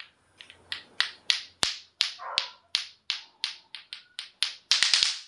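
Lato-lato clackers: two hard plastic balls on strings knocking together in a steady rhythm of about three sharp clacks a second, ending in a quick flurry of clacks.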